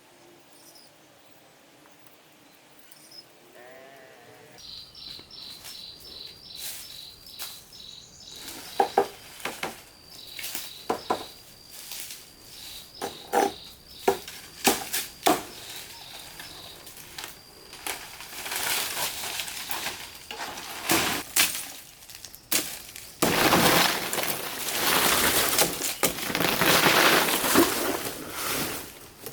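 Repeated knocks and clattering over a faint steady high tone, giving way about three-quarters of the way through to a louder, continuous clatter and rustle.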